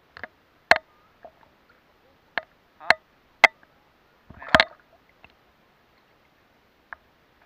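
Short, sharp splashes and knocks of water close by, about nine at irregular intervals, with a longer splash about halfway through.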